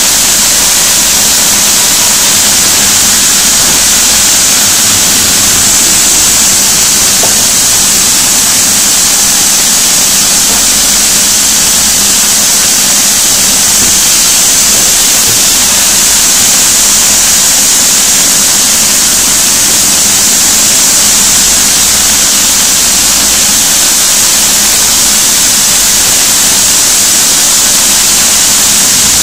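Sawmill saw, driven by a large electric motor, running and cutting timber on the log carriage: a loud, steady noise with a strong high hiss.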